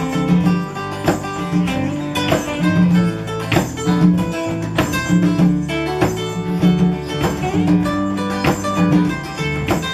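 A live band plays an instrumental passage with no singing: strummed acoustic guitar over steady, sustained low notes, on a regular beat.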